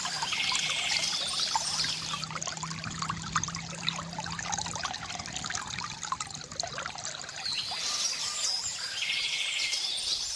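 Water trickling and splashing from a bamboo fountain, with birds chirping in two bursts: near the start and again about eight seconds in.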